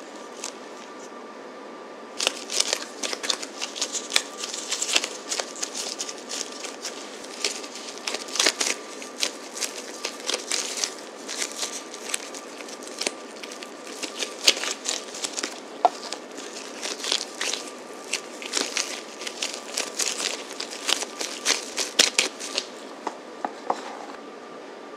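Hands in disposable gloves squeezing and shaping soft cheese cookie dough around a cream-cheese filling: close crinkling and rustling of the gloves and dough in quick irregular bursts, starting about two seconds in and stopping shortly before the end.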